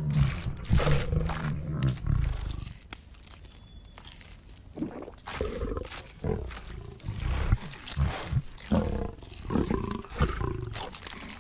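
A tyrannosaur growls low and deep for the first couple of seconds with a carcass in its jaws. From about five seconds in come short, irregular sounds of meat being torn and chewed.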